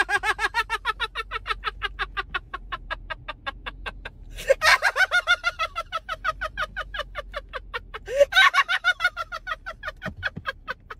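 A man laughing hard in a long, high-pitched cackle: a rapid string of ha-sounds, about ten a second, breaking off twice to draw breath, about four and eight seconds in.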